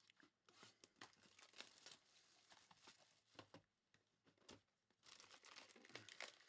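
Faint crinkling and tearing of plastic wrapping being handled and opened, in irregular crackles that grow busier near the end.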